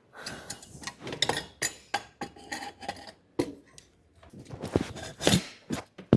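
Metal clinks, knocks and scraping as a Norifumi Noctus T4 exhaust end can is worked onto its pipe by hand, with a few sharper knocks near the end.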